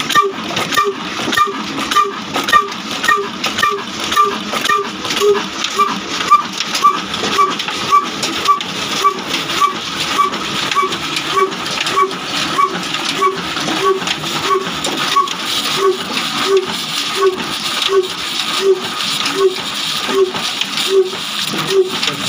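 Old Ruston Hornsby diesel engine running at slow speed, with a steady, even beat of about two to three strokes a second.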